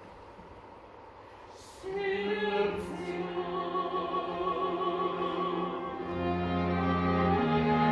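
Classical orchestral music that comes in about two seconds in after a quiet opening, with long held chords that change a couple of times near the end.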